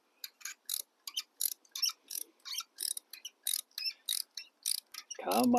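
Hand ratchet wrench clicking in short bursts, about three a second, as a tight exhaust fastener is turned out a stroke at a time.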